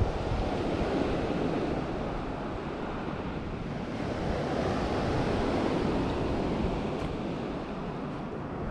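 Sea waves washing on the shore, swelling and easing twice, with wind rumbling on the microphone.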